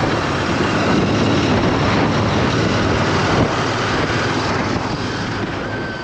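Motorcycle running at road speed: a steady engine hum under heavy wind rush on the microphone. A thin high whistle comes in briefly near the end.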